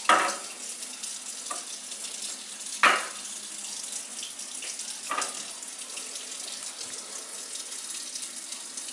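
A kitchen tap running into the sink, a steady rush of water, with three sharp knocks spread through the first half.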